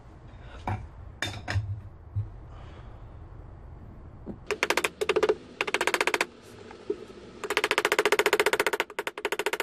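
A few light knocks, then from about halfway four bursts of very fast hammering from a handheld power tool, the longest over a second, as it drives nails through a wooden square dowel into the shelf's side panel.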